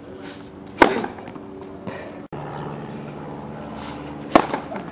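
Tennis racket striking the ball on a serve, twice, about three and a half seconds apart: each a sharp pop, the second loud too, over a steady low background hum.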